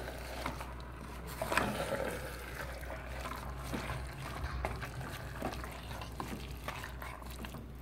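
A wooden spatula stirring chicken masala with fresh mint and coriander leaves in a pressure cooker. The food sizzles softly and steadily, with a few faint knocks of the spatula against the pot.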